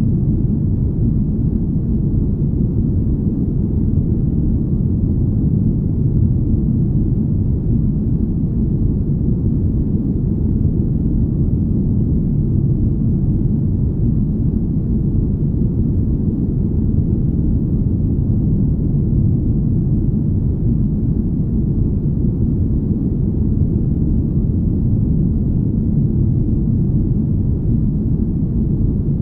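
Deep, smooth rumble of a spaceship-cabin ambience, a steady unchanging noise sitting low with almost no treble.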